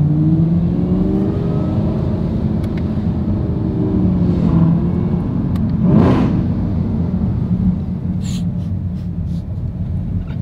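Supercharged 6.2 L LT4 V8 of a Chevrolet Camaro ZL1, running with its secondary catalytic converters deleted, accelerating hard: the engine note climbs over the first two seconds, eases, climbs again, and a loud burst comes about six seconds in.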